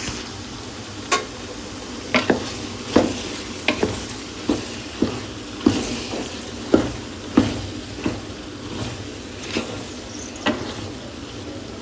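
Wooden spatula stirring chunks of beef liver and onion in a metal pot, knocking against the pot about once a second, over a steady sizzle of frying.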